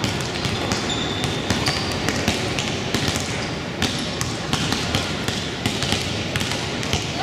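Basketballs bouncing on a hardwood gym floor in irregular thuds, with a few brief sneaker squeaks, over the steady din of a gymnasium during a game.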